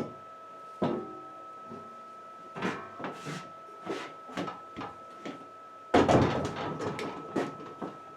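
Irregular knocks and clattering of materials being handled during building work, loudest in a rattling cluster near the end, over a faint steady high tone.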